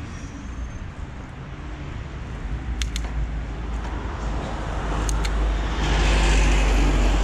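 BMX bike rolling over textured stamped-concrete paving, its tyres giving a steady low rumble that grows louder about five seconds in. Two pairs of sharp clicks come from the bike, around three and five seconds in.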